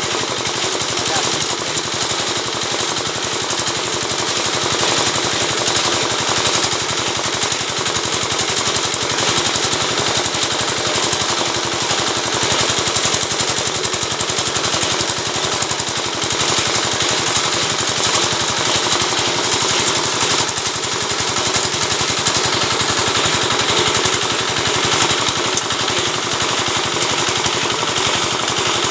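Oil palm midrib (lidi) stripping machine running steadily, a loud continuous rapid rattle.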